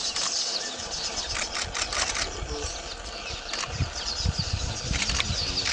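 Outdoor wildlife ambience of many birds chirping, with a few sharp clicks and a low rumble underneath.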